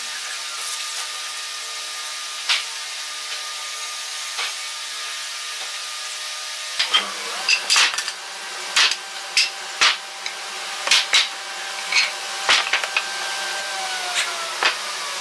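Wooden workpieces knocking and clattering on a wooden workbench as they are picked up and set down, in many sharp knocks from about halfway through. Under it a steady machine hum runs throughout and drops in pitch near the end.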